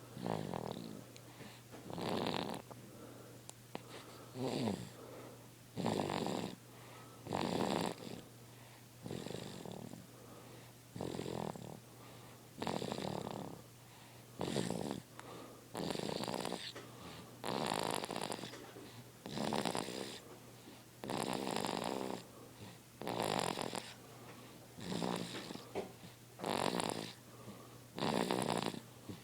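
A sleeping baby snoring in a steady rhythm, one snoring breath roughly every one and a half to two seconds.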